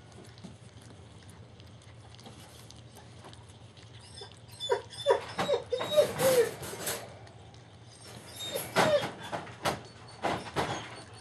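Young German shepherd puppies squeaking and whimpering: a run of short, high cries about halfway through and a few more near the end, with newspaper rustling under them.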